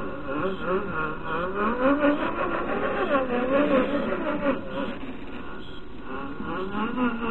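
A 1:18-scale RC4WD Gelande II rock crawler's small electric motor and gear drive whining as it crawls over rough ground, the pitch rising and falling with the throttle. The whine eases about five seconds in and picks up again near the end.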